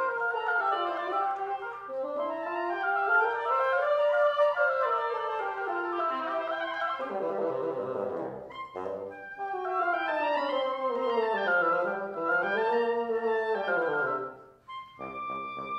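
Live duet of a clarinet and a second wind instrument playing long swooping lines that glide up and down together. About halfway through, one line falls steeply to a very low note, and near the end the music briefly drops away before steadier held notes begin.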